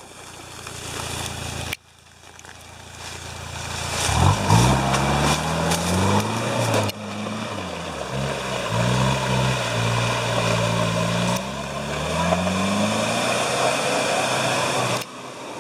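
Off-road vehicle's engine revving hard, its pitch climbing and dropping again several times from about four seconds in, over the noise of the vehicle working through the terrain. The sound breaks off abruptly twice.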